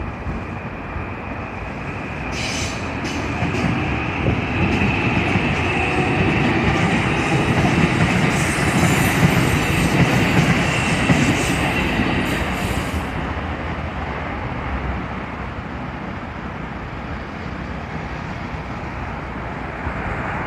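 A Keikyu electric train passing over a level crossing. It builds up about two seconds in, with a string of sharp wheel clicks over the rail joints, is loudest in the middle, and fades after about thirteen seconds.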